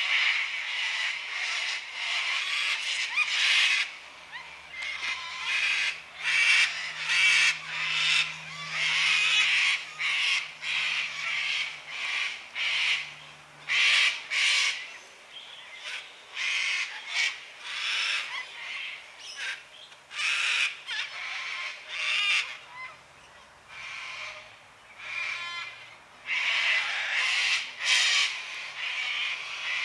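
Cockatoos screeching: harsh, raucous calls one after another, often overlapping, with a few short lulls.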